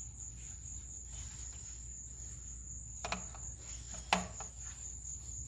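Steady high-pitched insect trill, with two short knocks about three and four seconds in as the plastic intake manifold is handled.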